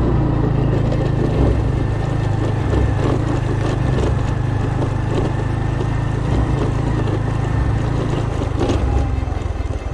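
A small engine running steadily at an even pace, with some wind noise; it eases off slightly near the end.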